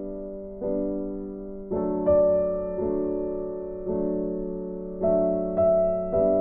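Background piano music: slow, gentle notes and chords struck about once a second, each left to fade.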